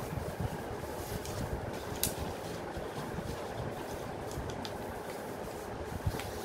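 A steady low rumble, with a few faint taps and rustles of a paper strip being pressed and folded flat on a wooden tabletop, the clearest about two seconds in.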